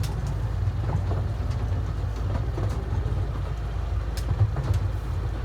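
Small passenger train running along its track, heard from on board: a steady low rumble with uneven pulsing and a few faint clicks.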